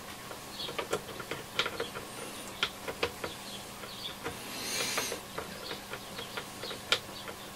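Irregular light metallic clicks and scrapes from a 12 mm long-reach socket turned by hand on the retaining nut of a Yaesu FRG-7700 receiver's band switch, with a longer scrape about five seconds in.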